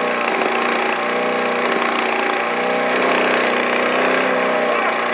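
Small petrol lawn mower engine running steadily and loudly, a rough, noisy drone over a steady engine tone.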